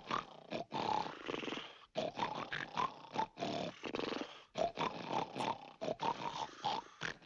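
Cartoon sound effect of many men snoring in their sleep: a chorus of overlapping, uneven snores of different pitches.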